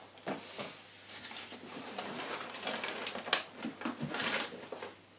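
Crumpled brown packing paper rustling and crinkling, with light cardboard knocks and scrapes, as a boxed model kit is lifted out of a cardboard shipping box.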